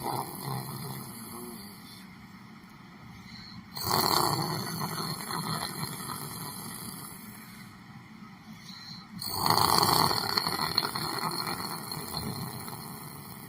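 A person snoring in slow, noisy breaths that start sharply and fade away over several seconds, with two loud snores about five seconds apart.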